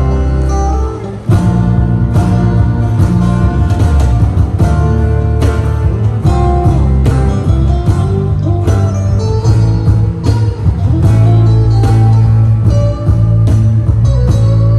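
Live band playing an instrumental intro, led by guitar over a heavy bass with a steady beat. The sound drops out briefly about a second in, then the full band comes in.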